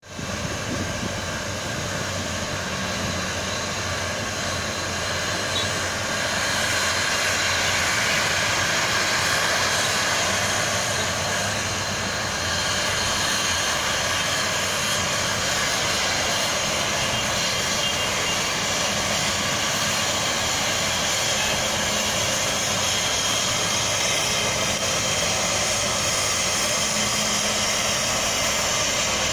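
Nilgiri Mountain Railway X class rack-and-pinion steam locomotive moving slowly while shunting, with a steady hiss of steam.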